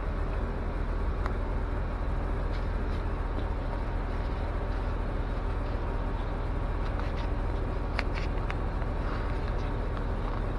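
Steady low rumble of a city transit bus's engine and running gear heard from inside the passenger cabin, with a few faint clicks and rattles.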